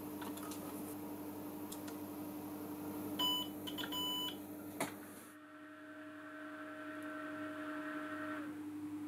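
Two electronic beeps, a short one and then a longer one, about three seconds in, over a steady electrical hum. After a sudden change in the background, a faint steady whine sounds and stops shortly before the end.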